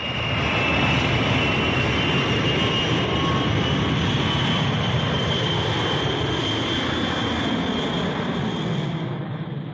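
Jet airliner passing high overhead: a steady rushing noise with a high whine, swelling in at the start and easing off near the end.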